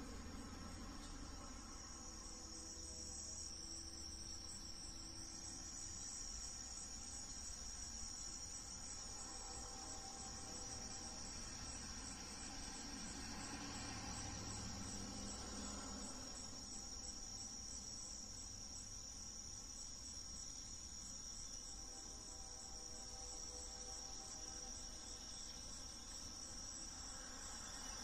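Insects trilling steadily at a high pitch, with a low rumble underneath.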